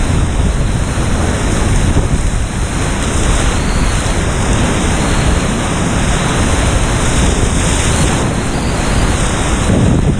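Whitewater river rushing, a loud steady roar of water with a heavy low rumble of wind buffeting the microphone.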